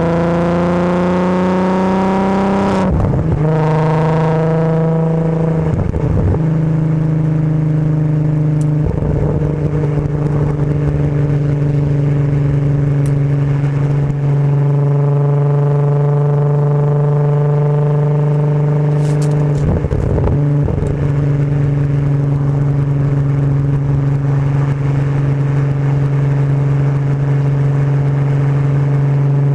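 Volkswagen VR6 engine's exhaust note, close-miked, as the car pulls away: the note rises in pitch for about three seconds. It breaks off briefly there, as at a gear change, and again about six, nine and twenty seconds in, then settles into a steady cruise.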